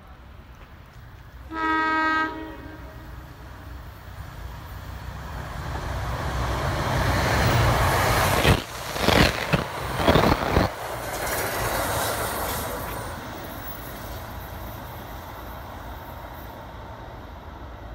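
New Jersey Transit Arrow III electric multiple-unit train running express through the station. Its horn sounds once briefly about two seconds in. Then its rush builds as it passes at speed, with loud clattering of the wheels in the middle, and fades away.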